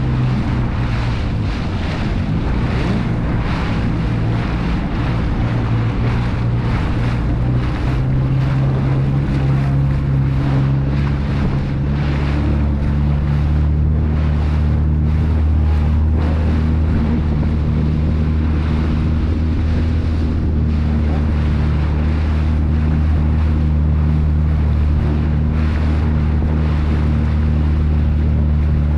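Motorboat engine running under way. Its steady drone shifts about twelve seconds in and then holds even, over water rushing past the hull and wind buffeting the microphone.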